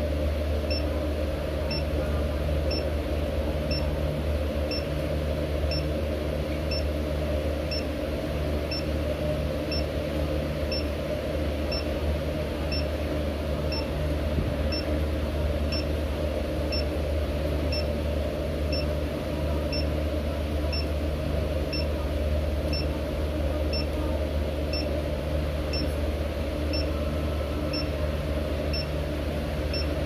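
A Xiaomi Mi electric scooter's dashboard beeping over and over, short high beeps a little under a second apart, the warning that it has not yet been activated through the Mi Home app. A steady low hum runs underneath and is louder than the beeps.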